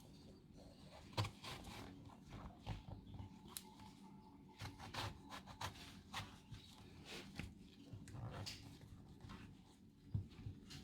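Faint, scattered light scrapes and small taps of kitchen handwork: a utensil working the pulp out of halved aubergines.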